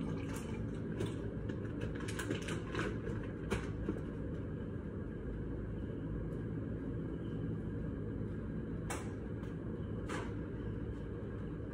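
Steady low machine hum in a kitchen, with a few light clicks and knocks, several in the first few seconds and two more a little before the end.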